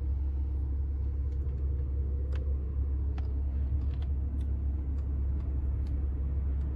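Steady low rumble of road and drivetrain noise inside the cabin of a moving Citroën C6, with a few faint clicks scattered through it.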